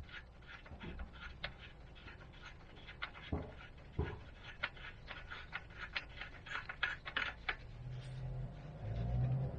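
Irregular clicks and knocks of hand tools working on metal suspension parts, with a low hum coming in near the end.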